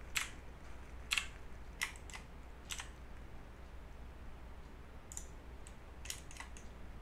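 Computer keyboard keys pressed one at a time, about eight separate clicks spaced irregularly, over a faint steady low hum.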